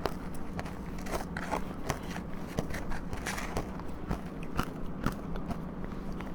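Close-up crunching and chewing of powdery frozen ice dusted with matcha powder, a quick irregular run of small crisp crunches and crackles, over a steady low hum.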